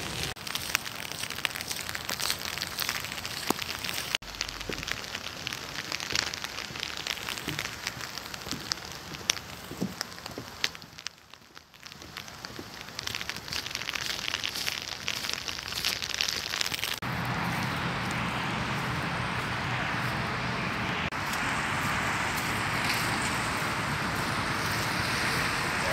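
Rain falling on an umbrella held overhead: many small, sharp drop ticks over a hiss, briefly fading around the middle. Near the end it turns into a steadier, denser hiss.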